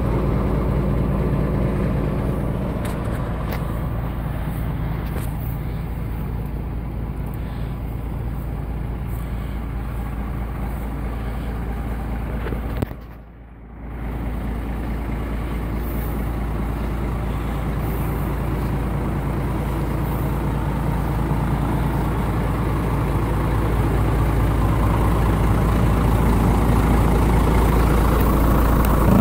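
1987 Ford F800's 7.8-litre inline-six diesel idling steadily, dipping briefly about thirteen seconds in and growing louder toward the end.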